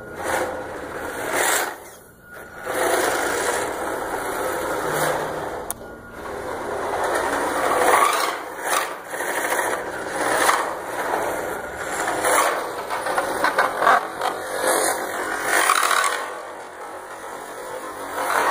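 Homemade two-wheel-drive electric RC drift truck running: its small motor and gears whir in repeated surges that rise and fall every second or two as the throttle is worked.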